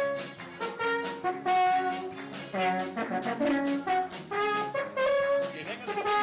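Brass instruments playing music: a quick run of short notes that keep changing in pitch.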